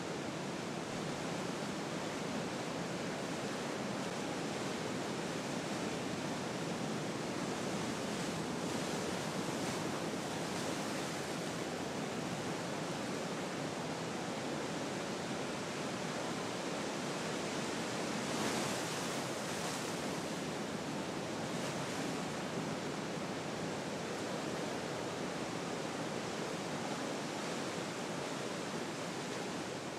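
Ocean surf washing steadily, an even hiss with no distinct crashes, swelling a little about two-thirds of the way through.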